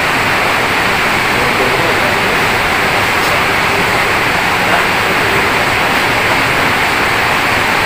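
Steady loud hiss with no distinct events.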